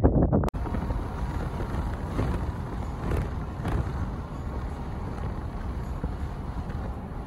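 Wind buffeting the microphone, cut off abruptly about half a second in, then the steady road and engine noise of a car driving, heard from inside the car.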